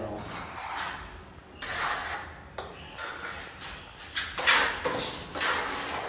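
Several irregular scraping strokes of a hand tool working cement mortar on the side of a concrete staircase.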